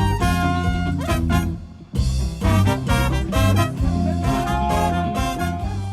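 Upbeat swing-style music with brass, briefly cutting out just before two seconds in and then coming straight back.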